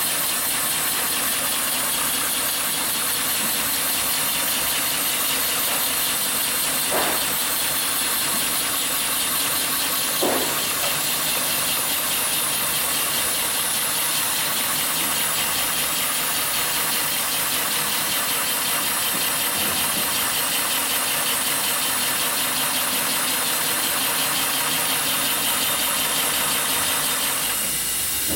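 HighTex 205-370 cylinder-arm, triple-feed heavy-duty industrial sewing machine running steadily as it stitches thick lifting-sling webbing, with a constant high hiss and an even rhythm. Two short clicks about seven and ten seconds in.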